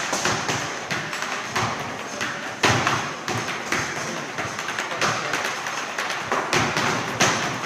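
Indistinct voices in a noisy room with frequent irregular knocks and thumps; the loudest knock comes between 2 and 3 seconds in.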